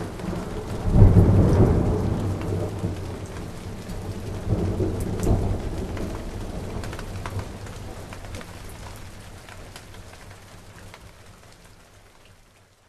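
Thunderstorm: steady rain with thunder rumbling twice, loudest about a second in and again around four and a half seconds, then fading away toward the end.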